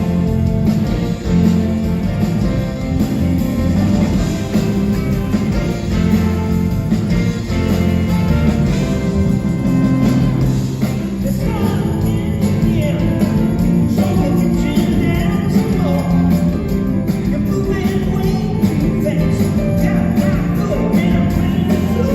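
Live rock band playing a song, with bass, drums and guitars, and a vocal line wavering above it from about halfway in.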